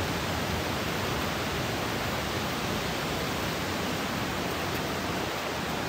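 Steady rush of a mountain stream, an even noise with no change.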